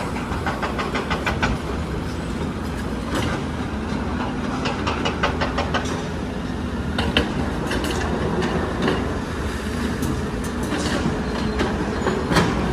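Hydraulic excavator's diesel engine running steadily under work, with several runs of rapid metallic clicking and rattling from the machine.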